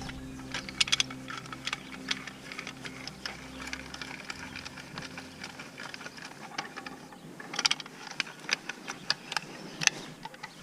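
Irregular sharp clicks and clatter of metal tools being handled, with a quick run of clicks about three quarters of the way through, over a low hum that fades out about halfway.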